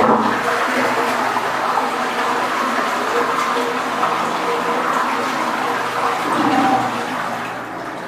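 Parryware toilet cistern flushing: a steady rush of water draining from the tank, tailing off near the end. It is a test flush after the sticking push-button knob was filed smooth.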